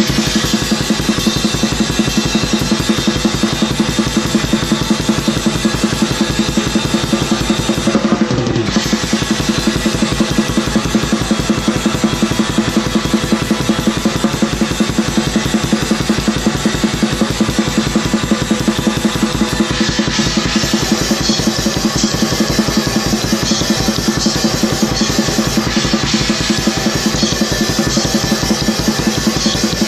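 Drum kit played as fast black metal drumming: a rapid, even stream of bass drum strokes under a dense wash of cymbals and snare. There is a brief break about eight seconds in, and the cymbal wash gets thicker in the second half.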